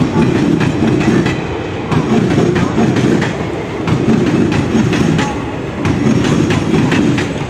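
Indian Railways express passenger coaches running past close by. The wheels rumble and clatter over the rail joints, the clatter coming in groups about every two seconds as each coach goes by.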